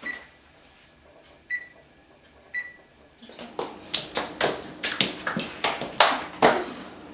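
Oven control panel beeping three times as its buttons are pressed to set it. This is followed, from about three seconds in, by a run of sharp, irregular clattering and knocking.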